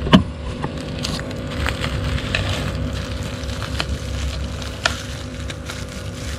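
Plastic shipping bag of water holding a betta fish being crinkled and worked by hand over a stainless steel bowl, with scattered crackles, a sharp knock just after the start and another about five seconds in.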